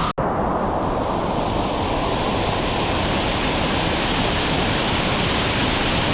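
Steady rushing of the Kuang Si waterfall close by, an even wash of falling water. The sound cuts out for an instant just after the start.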